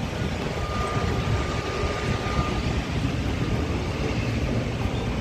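Steady engine rumble with a noisy hiss over it. A faint thin whine sounds for about two seconds near the start.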